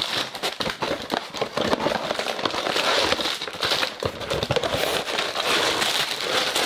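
Sealed plastic bags of LEGO Technic parts rustling and crinkling as they are shaken out of a cardboard box, with many small clicks throughout.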